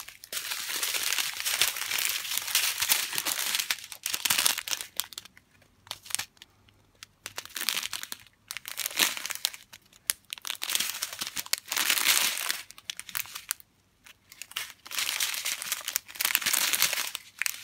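Thin plastic packaging crinkling as strips of small bags of diamond-painting resin drills are handled, in several bouts with short pauses between them.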